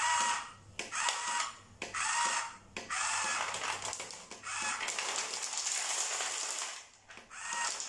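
Huina RC dump truck's tipper-bed lift mechanism whirring in short bursts, one about every second, as the bed rises. About five seconds in comes a longer rattling rush of about two seconds as stones slide off the tilted bed into a plastic basket.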